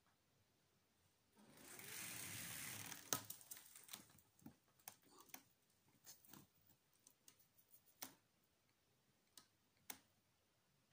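Handling noise: a rustle for about a second and a half, starting about a second and a half in, then a scattered run of light clicks and taps from small objects being handled.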